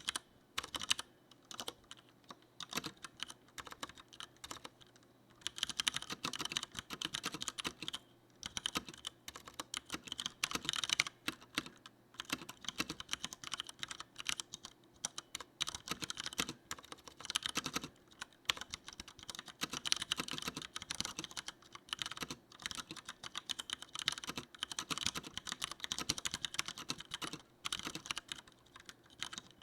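Typing on a Leopold FC900R mechanical keyboard with Cherry MX Brown (tactile, non-clicky) switches: fast runs of key clacks, broken by short pauses every few seconds.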